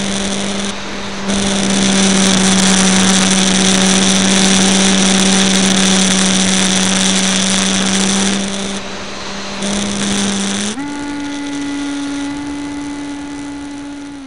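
Bixler RC plane's electric motor and propeller, heard from a camera mounted on the plane: a steady whine over loud wind rush. About eleven seconds in the whine steps up in pitch and the rush drops.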